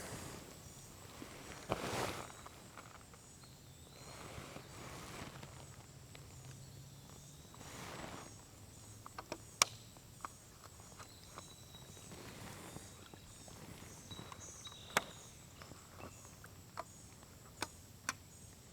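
Faint footsteps and handling noises with a few sharp clicks scattered through, over a quiet background of faint high insect trilling.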